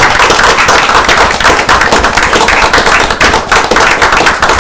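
Loud applause from a small group of people, the individual hand claps coming fast and distinct.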